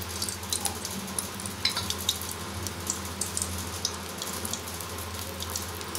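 Cooking oil heating in a metal pan, sizzling with scattered small crackles and pops.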